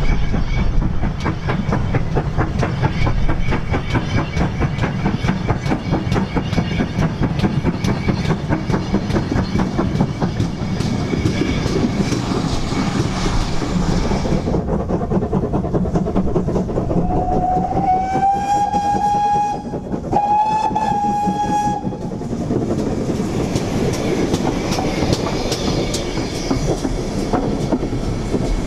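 Ex-GWR steam locomotive working a passenger train: a fast run of exhaust beats, then two whistle blasts a little past halfway, the first sliding up into a steady note. Near the end the coaches roll past with rhythmic wheel clatter over the rail joints.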